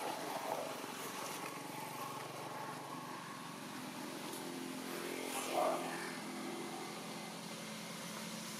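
A motor vehicle's engine running steadily, with a brief louder sound about five and a half seconds in.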